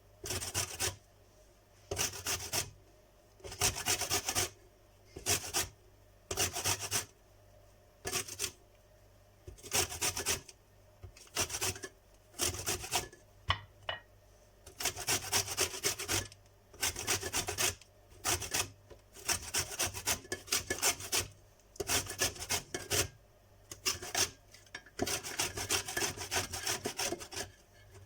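Lemon peel being grated, each pass of the fruit over the grater a short rasping stroke. The strokes come one every second or two, some in quicker runs.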